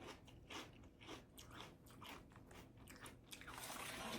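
Chewing and crunching food close to the microphone: faint, irregular crunches. A soft hiss comes near the end.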